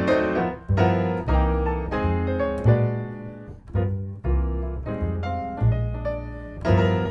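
Live jazz duo of acoustic grand piano and upright double bass: the piano plays chords and melody in a steady swing, over low plucked bass notes.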